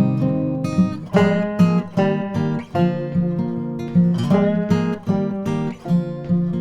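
Background music: acoustic guitar being strummed.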